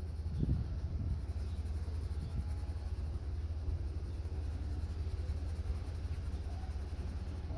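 A low steady rumble, with a colored pencil shading back and forth on paper.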